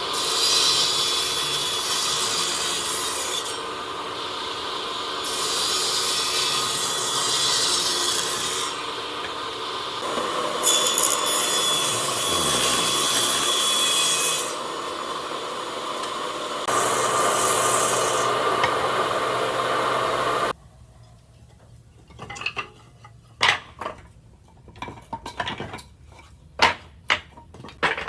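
A power tool working wood gives a steady, gritty noise in several stretches that change abruptly. It stops sharply about twenty seconds in, and scattered sharp knocks and clicks follow.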